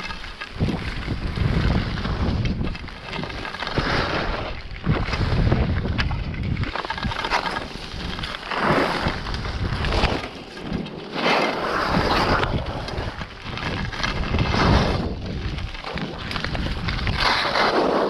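Wind rushing over an action camera's microphone while skiing downhill, with swells of ski edges scraping across packed snow every second or two as the skier turns.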